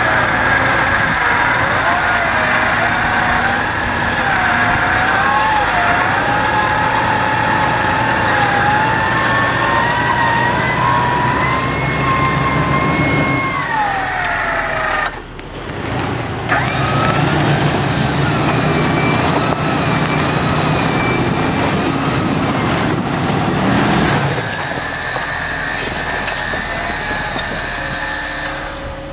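Electric winch on the front bumper of a Jeep Wrangler running under load, its motor giving a whine whose pitch wavers up and down as it pulls on the cable. About halfway through the whine drops in pitch and stops, starts again a couple of seconds later, and stops again about five seconds before the end, leaving a lower steady hum.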